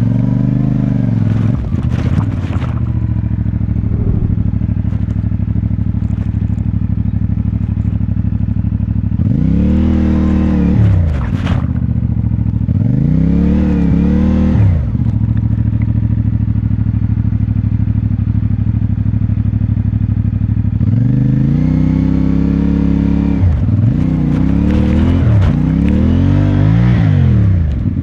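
CFMoto 450MT's parallel-twin engine running at low revs, blipped up and back down several times: once about a second in, twice around the middle, then a quick run of revs near the end. The short bursts of throttle come while the bike struggles for grip on a muddy climb.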